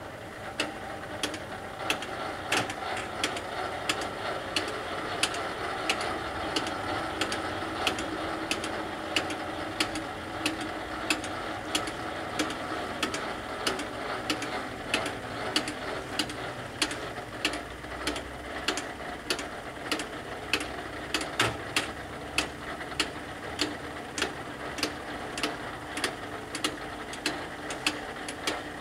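Level-crossing barrier drive lifting the booms: a steady mechanical hum with a sharp, regular tick roughly twice a second, starting suddenly.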